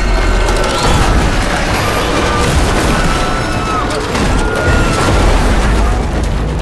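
Cinematic destruction: a heavy, continuous rumble of a wrecked subway train and falling debris, with people screaming as they flee, under dramatic music.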